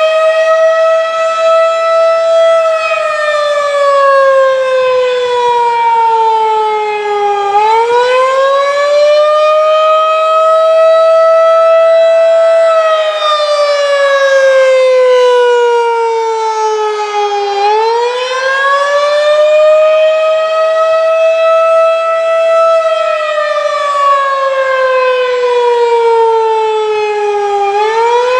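Federal Signal 2001-DC rotating outdoor warning siren sounding the wailing attack signal. Its tone climbs quickly, holds at its top pitch for a few seconds, then slides down, repeating about every ten seconds.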